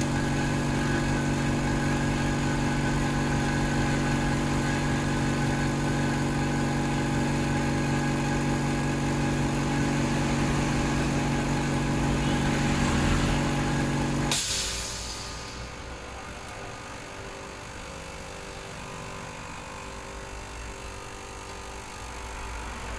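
A steady motor hum runs for about fourteen seconds, then cuts off abruptly with a brief rush of noise, leaving a much fainter hum.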